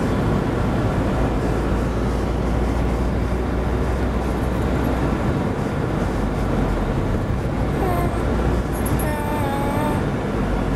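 Car driving, heard from inside the cabin: a steady low rumble of engine and road noise. A faint wavering tone comes in briefly near the end.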